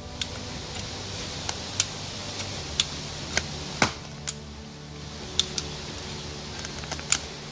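Background music with steady held tones, crossed by sharp, irregularly spaced clicks or knocks, about ten in all.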